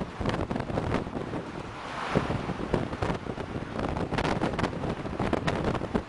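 Strong, gusting wind buffeting the microphone with irregular crackles and thumps, and a stronger gust about two seconds in.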